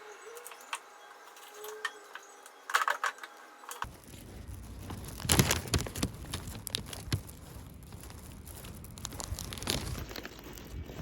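Small handling sounds: scattered light clicks and crinkling, like objects or packaging being handled. About four seconds in, a steady low background hum comes in abruptly.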